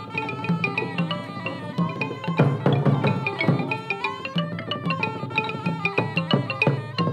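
Cambodian pinpeat ensemble music for Lakhon Khol mask dance: a held melody over regular drum beats. About two and a half seconds in comes a second of dense, loud percussion strikes.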